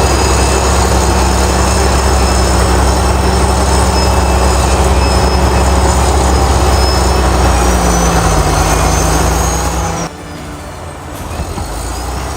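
Heavy diesel machinery running steadily with a deep low drone and a faint high whine that drifts slowly in pitch. About ten seconds in it cuts sharply to a quieter machine sound.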